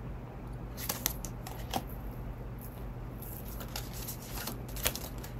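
Oracle cards being handled and shuffled by hand: scattered soft card clicks and rustles, with a few sharper snaps about a second in, near two seconds and near the end, over a faint steady low hum.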